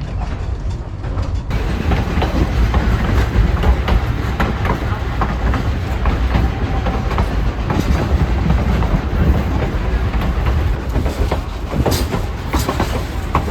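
Durango & Silverton narrow-gauge train rolling along the track: a steady low rumble with irregular clicks and clacks of the wheels over the rails. It gets louder and brighter about a second and a half in.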